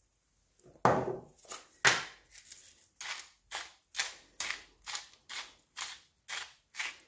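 Hand-twisted salt and pepper mills grinding over a bowl: a run of short crunching strokes, about two or three a second, starting about a second in.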